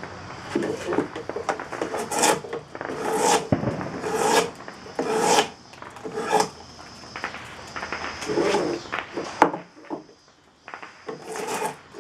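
Drawknife taking big cuts off a green black locust hatchet-handle blank, about one pulling stroke a second, with a short pause about ten seconds in.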